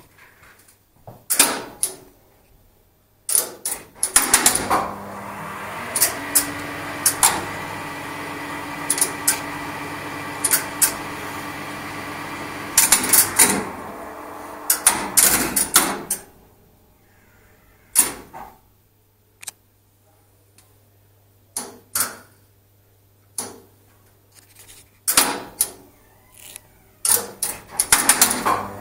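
Relays and contactors in a 1970s Express Lifts relay-logic controller clacking in quick bursts, and a steady electrical hum from the lift machinery running for about ten seconds in the middle. Scattered clacks follow as the lift's switching goes on.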